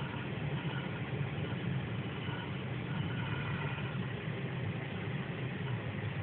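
Car engine and road noise heard from inside the cabin while driving, a steady low rumble with no change in pace.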